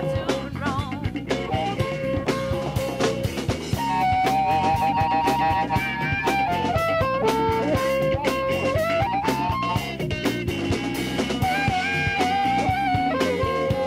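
Blues-rock music: a guitar plays long, held lead notes that waver and bend, over a drum kit.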